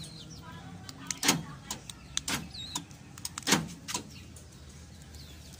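Central-locking door lock actuators clunking as the keyless-entry remote is pressed: two loud thunks about two seconds apart, with lighter clicks around them.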